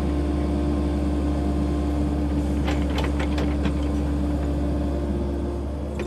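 Diesel engine of a tracked excavator (track hoe) running steadily under load with a low hum as it digs, with a cluster of clattering knocks about halfway through from soil and clods falling from the bucket.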